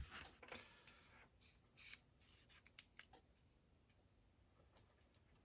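Faint handling sounds: a sharp click, then a short scraping slide lasting about a second, followed by scattered light clicks and rustles as small tools or parts are handled.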